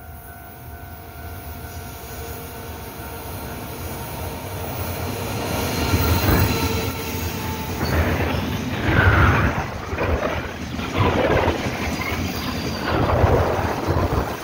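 Container freight train passing close by on a curve. The locomotive's approach builds up, then the loaded flatcars roll past with wheel rumble and rail clatter that swell about every two seconds as each wagon goes by.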